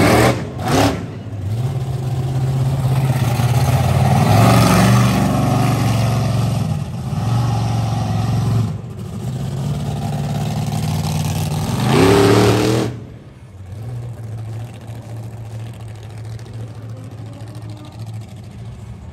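Monster truck engine revving hard while the truck spins donuts, the revs climbing and dropping several times. About two-thirds of the way through, a sharp rising rev cuts off suddenly, and the engine then runs on lower and quieter.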